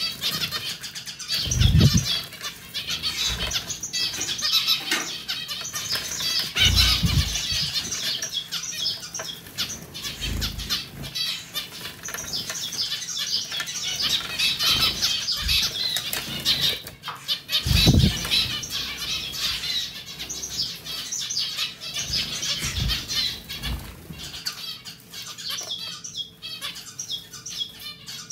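Zebra finches splashing and beating their wings in the water bowl of a pet drinking fountain, with water trickling from the fountain's spout. Several louder splashes stand out, the biggest about two seconds in and about two-thirds of the way through. After that the splashing dies down, leaving the trickle and a faint steady hum.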